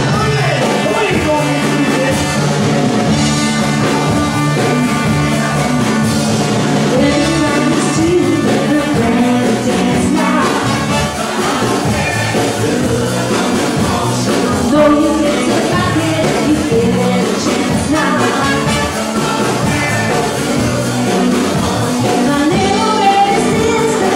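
A band playing an upbeat song with a singer, loud and steady throughout, with a repeating bass line under the vocal.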